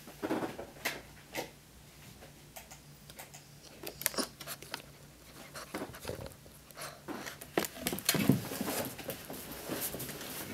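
Boston Terrier puppy's claws clicking and scrabbling on a hardwood floor: irregular clicks and taps, with a louder thump about eight seconds in.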